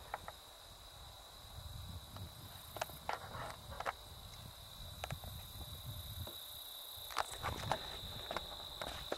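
A steady high-pitched drone of insects such as crickets in prairie grass, with scattered clicks and taps over it.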